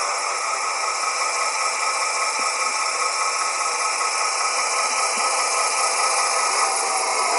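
Sound decoder of an HO-scale Rivarossi Vossloh DE18 model diesel locomotive playing a steady diesel-electric engine sound as the model runs, thin with no deep bass.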